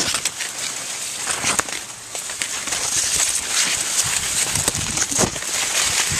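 Dry corn leaves and stalks rustling and brushing past while someone pushes on foot through dense field corn. Irregular crackles and footfalls sound over a steady high hiss.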